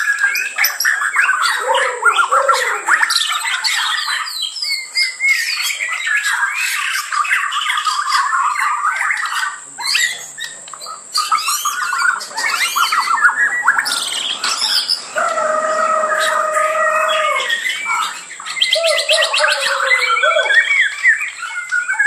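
Many caged songbirds singing at once: a dense, overlapping chorus of quick warbles, chirps and trills, with one long held whistled note about two-thirds of the way through.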